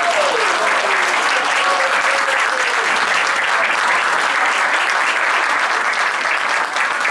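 Audience applauding, a steady, dense clapping of many hands that holds throughout.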